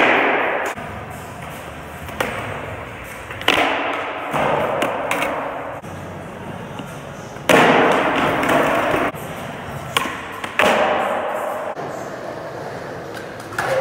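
Skateboards rolling on a smooth concrete floor, as several stretches of wheel noise that each start abruptly and die away. Now and then a board lands or knocks with a sharp thud.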